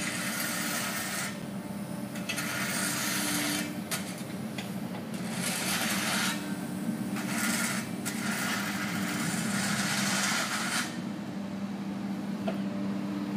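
Construction work: repeated harsh, hissy strokes, each about one to two seconds long with short pauses between, over a steady low hum.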